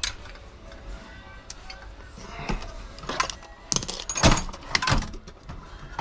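Metal hand tools clanking and clinking as they are laid into an open drawer of a steel Craftsman tool chest, the drawer rattling on its slides. The knocks come singly at first, then several loud ringing clanks close together about four to five seconds in.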